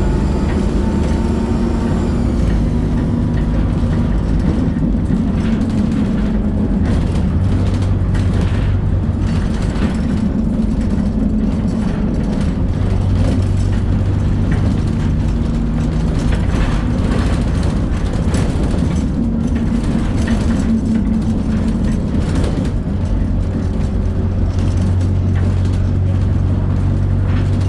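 Diesel engine of an Alexander Dennis Dart bus with Plaxton Pointer 2 body running under way, its note rising and falling repeatedly. A thin turbo whistle fades out in the first couple of seconds.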